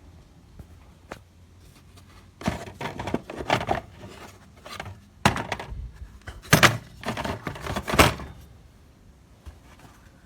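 Handling noises: a run of sharp knocks, thuds and rattling clatter from about two and a half to eight seconds in, loudest around six and a half and eight seconds.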